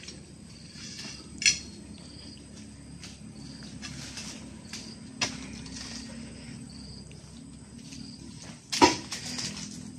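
Oil palm fruit bunches handled by hand: a couple of sharp knocks as they are spiked and lifted with a pole, then a heavy thud about nine seconds in, the loudest sound, as a bunch is heaved onto a pickup truck's load of bunches. A steady high insect hum runs underneath.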